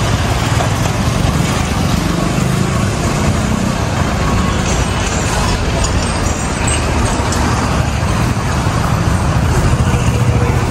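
Steady motor-vehicle noise: an engine running with road rumble.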